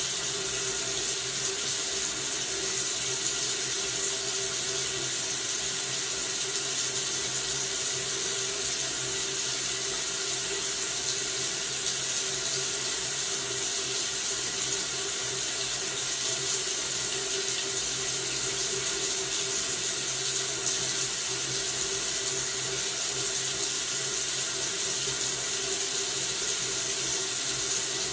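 Tap water running steadily from a faucet into a sink: a continuous, even hiss with no change.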